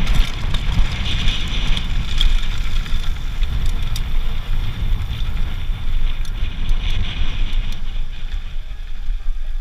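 Wind rushing over the microphone and the rumble of mountain bike tyres rolling fast over a gravel trail, with scattered clicks and rattles from the bike. It eases off a little near the end.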